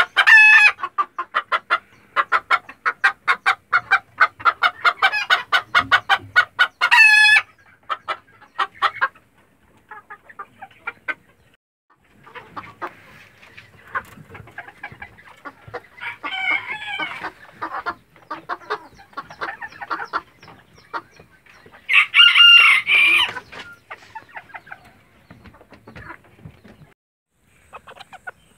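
A flock of Sebright bantam chickens clucking rapidly and steadily, then more sparsely. A rooster gives loud crowing calls, short ones at the start and about seven seconds in and a longer one about twenty-two seconds in.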